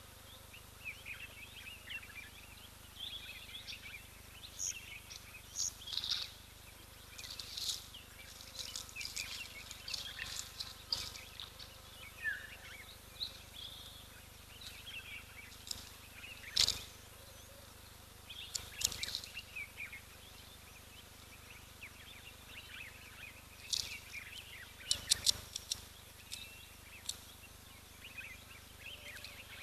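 Assorted wild birds chirping and twittering in short scattered calls, with a few sharp clicks: a strong one about halfway through and a quick cluster near the end.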